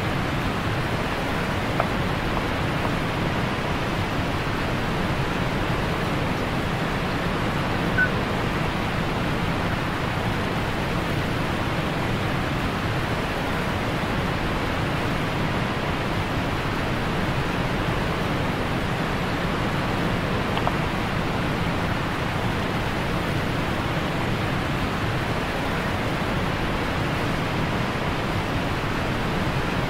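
A large waterfall pouring at close range: a steady, unbroken rush of falling water, with one brief tap about eight seconds in.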